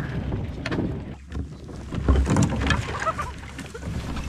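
Canoe moving among lake ice: irregular knocks and scrapes against the hull and paddles, over a steady rumble of wind on the microphone.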